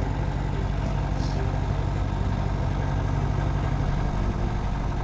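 Piston engine of a Grumman light aircraft idling steadily after start-up.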